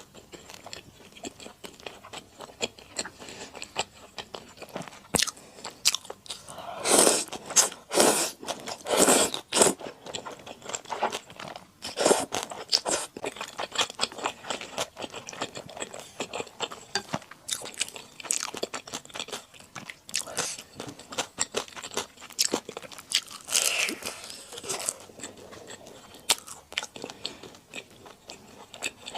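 Close-miked eating: a person chewing and biting into rosé buldak with wide flat glass noodles, with a steady patter of wet, sticky mouth clicks. There are louder bursts of eating noise about seven to ten seconds in, again around twelve seconds, and near the end.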